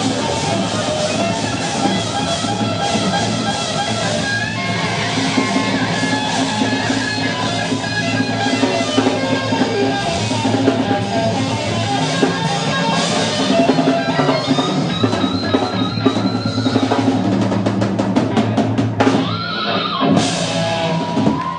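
Rock band playing live, drum kit and guitars, loud and steady; near the end the music breaks off briefly.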